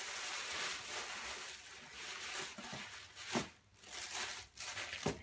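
Tissue paper rustling and crinkling as a shoe is pulled out of its wrapping in a box, with a couple of sharper crackles later on.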